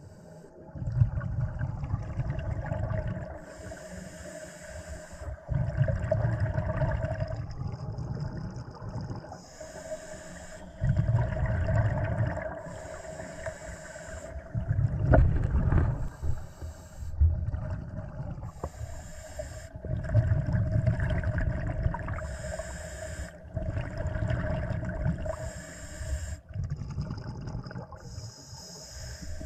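A scuba diver breathing underwater: hissing inhalations through the regulator alternating with bubbling exhalations, about one breath every three to four seconds, over a steady low hum.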